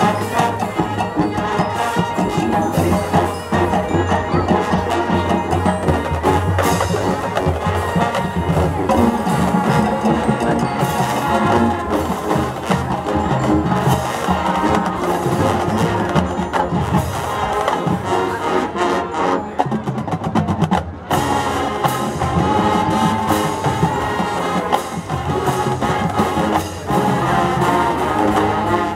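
Marching band playing its field show: brass, sousaphones and woodwinds with cymbals and percussion. The music breaks off briefly about two-thirds of the way through, then picks up again.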